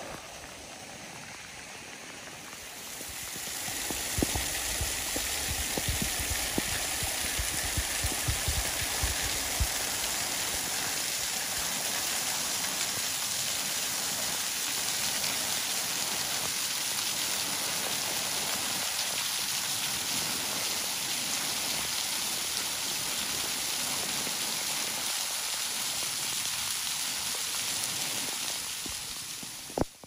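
Thin waterfall spilling down a rock cliff and splashing onto the stones below: a steady, even hiss of falling water that comes in about three seconds in and fades near the end. Before it, a softer hiss of rain.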